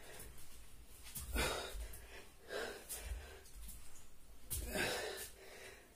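A man breathing hard while exercising, with several sharp, noisy exhalations about a second or so apart; the strongest comes about three-quarters of the way through.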